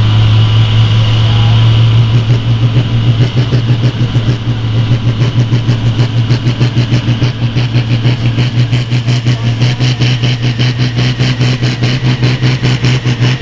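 Red International Harvester farm tractor's engine running hard under the load of a weight-transfer sled, the exhaust pouring black smoke. A fast, even throb sets in about two seconds in and grows stronger.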